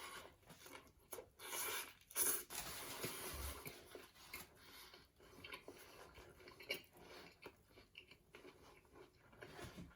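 Close-up chewing of a loaded Italian sub sandwich, with crunchy, crackly bites between about one and a half and four seconds in, then quieter wet chewing.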